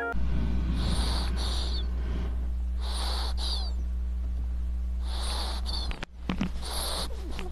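Sleeping ferret snoring, picked up close by a microphone held at its nose: four soft snoring breaths about two seconds apart, some with little squeaky chirps, over a steady low hum.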